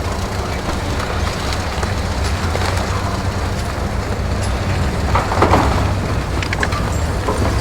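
Steady low rumble of a heavy vehicle running, with a brief swell about five seconds in.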